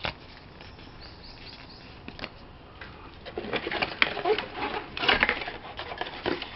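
Packaging rustling and crinkling in short, irregular bursts as a gaming headset is unpacked, mostly in the second half, with a single click right at the start.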